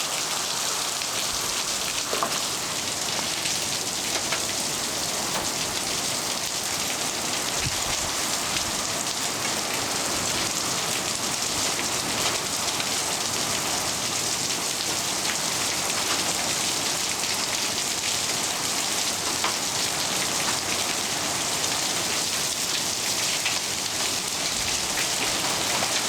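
Heavy rain falling steadily on surfaces during a storm, with a few scattered sharper ticks.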